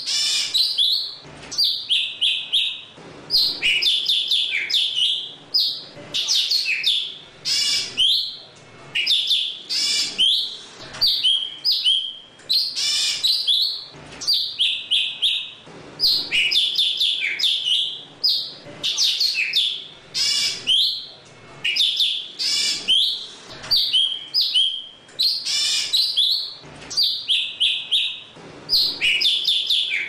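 Golden-fronted leafbird singing to call its flock: fast, varied runs of chirps and whistles in phrases a second or two long, with short pauses between them.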